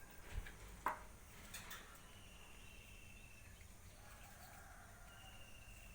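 Faint bird calls: drawn-out steady high whistles, twice, with two short sharp clicks about half a second and a second in.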